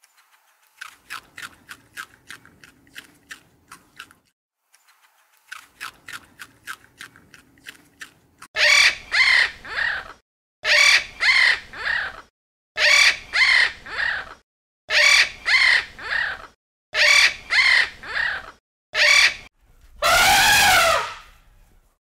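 Two quick runs of short, high clicks or chirps, then a blue-and-gold macaw squawking loudly: harsh calls in groups of two or three, repeated about every two seconds, with one longer squawk near the end.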